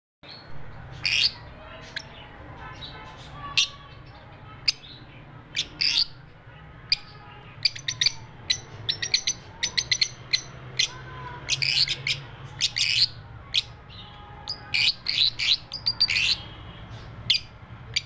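Fischer's lovebirds chirping: many short, sharp, high calls, some single and some in quick runs, at irregular intervals, over a faint steady low hum.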